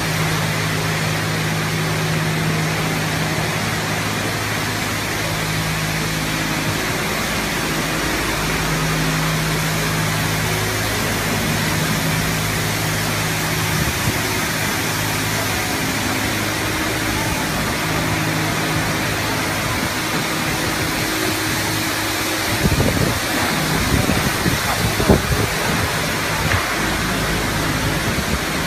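Touchless car wash machine's high-pressure water jets hissing steadily over a car, with a low steady hum underneath. The hum stops about three-quarters of the way through, and the spray then sounds more uneven.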